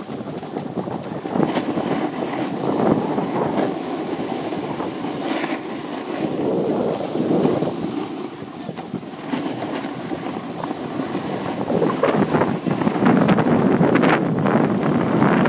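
Wind rushing over a handheld phone's microphone on a snowboard run downhill, a rough, gusting noise that grows louder towards the end.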